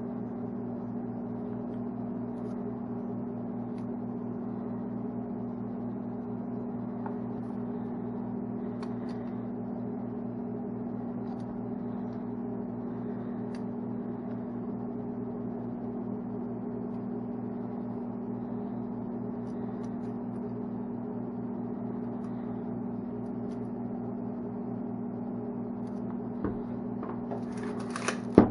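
A steady mechanical hum that holds one pitch throughout, with a few faint clicks, then a knock and a short rattle near the end.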